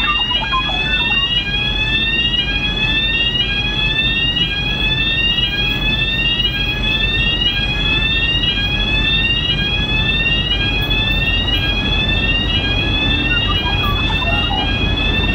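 Railway crossing warning alarm sounding an electronic tone that rises in pitch, repeating about once a second, as a train approaches. A low rumble builds under it near the end.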